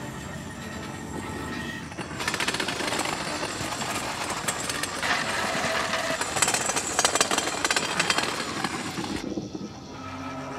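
Metal lawn chairs being dragged across a concrete pool deck: a loud, rough, rattling scrape that starts about two seconds in and cuts off sharply near the end.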